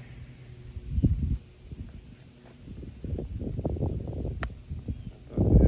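Small cardboard box being opened and its contents handled: a dull knock about a second in, then irregular rustling and scraping from about three seconds on, loudest near the end.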